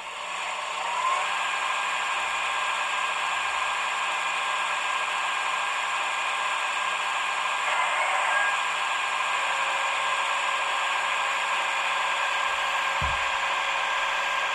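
Digital sound decoder of a Roco H0 EDK 750 railway crane model playing the crane's operating sound through the model's small loudspeaker: a steady running noise that comes in at the start and holds on. A brief low thump near the end.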